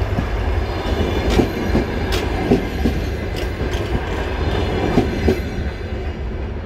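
DR1A diesel multiple unit rolling past at low speed as it pulls away, with a steady low rumble and irregular sharp wheel clacks over the rail joints.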